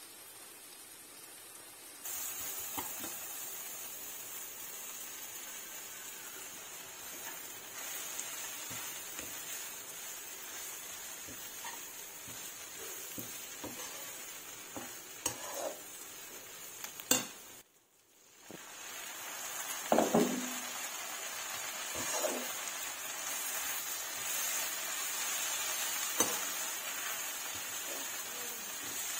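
Stir-frying in a nonstick wok: a steady sizzle as pounded anchovy-chili paste and then drumstick leaves are tossed, with a metal slotted spatula scraping and knocking against the pan. The sound drops away briefly a little past the middle, then the sizzle and knocks return.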